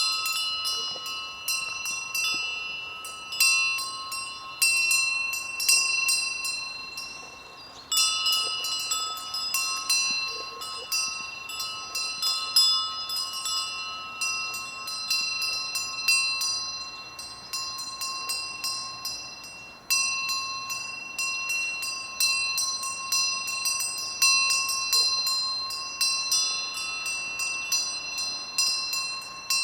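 Several sheep bells ringing unevenly as a flock grazes, the bells at a few different pitches struck over and over, overlapping with no steady rhythm.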